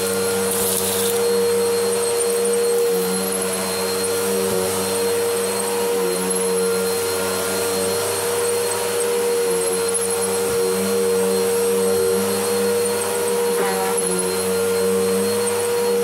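Upright bagless vacuum cleaner running steadily over carpet, its motor giving a constant hum, with faint crackles of grit being picked up.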